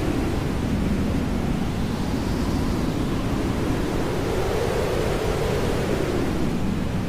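Hair dryer white noise: a steady, full rushing hiss with no breaks, its lower part slowly swelling up and down in pitch every few seconds.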